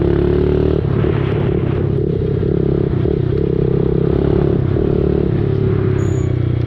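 Dirt bike engine running at a fairly steady speed while riding, its pitch wavering a little.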